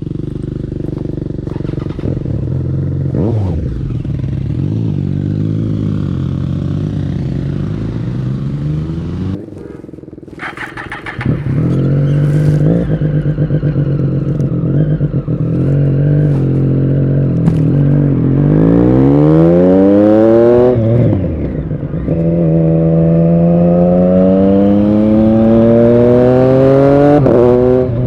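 Triumph Street Triple RS 765's inline three-cylinder engine running through an SC-Project S1 exhaust. It runs at low revs, dips briefly, then accelerates hard twice, the pitch climbing each time and dropping sharply at the gear change.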